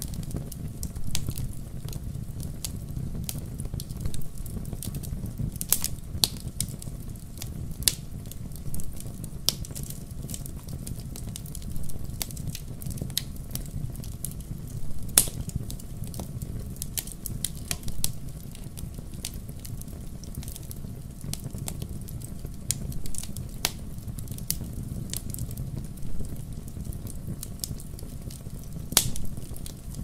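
Wood fire burning: a steady low rumble of flames with irregular sharp crackles and pops from the logs, a few of them louder snaps.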